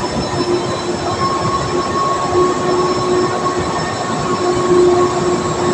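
Drilling rig machinery running: a loud, steady mechanical din with a held whine over it.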